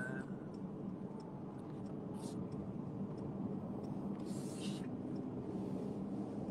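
Steady drone of a car on the move, heard from inside the cabin, with two brief hisses about two and four and a half seconds in.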